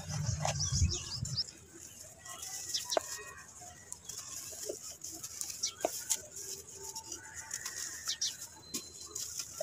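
Hands swishing through muddy water in a basin, then breaking soft soaked chunks of red dirt apart: wet crumbling with scattered small crackles, over a steady high hiss. Chickens cluck now and then in the background.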